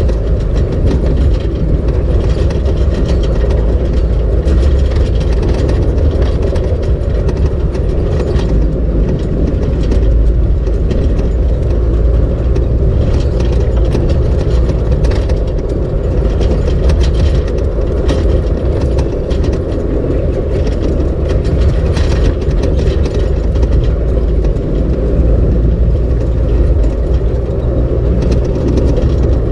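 Off-road vehicle driving on a gravel desert trail, heard from inside the cab through the windshield: a steady engine and tyre rumble with frequent small clicks and knocks.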